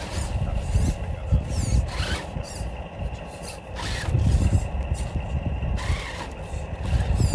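Electric motor and geared drivetrain of a six-wheeled Traxxas TRX-6 Mercedes G63 1/10-scale RC crawler running as it crawls slowly over rocks and gravel, with a faint steady whine and an uneven low rumble.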